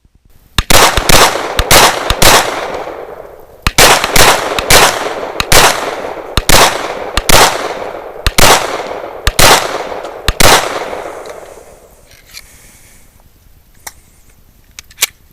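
Glock 41 .45 ACP pistol firing a string of about a dozen shots: several in quick succession at first, then a steady pace of about one shot a second, stopping about ten seconds in.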